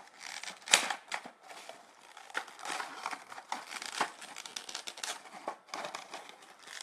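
Clear plastic blister pack being fingered and picked at, giving irregular crinkling and crackling, with one sharp click just under a second in.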